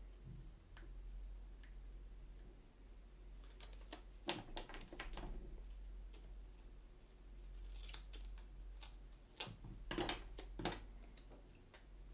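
Faint workbench handling: a strip of double-sided tape is pulled, snipped with scissors and pressed onto a plastic clock cap. It comes as scattered snips, rustles and clicks, in two clusters about four and nine seconds in, over a low steady hum.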